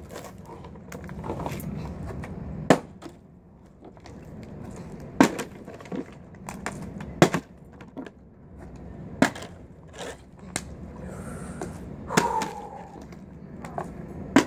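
Plastic water bottle being flipped again and again, landing with a sharp knock about every two seconds, some six times in all.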